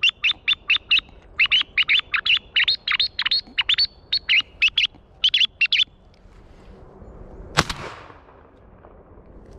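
A quick run of sharp, high chirps, about four a second, for the first six seconds, then a single shotgun shot with a trailing echo. The shot is fired at thrushes passing overhead.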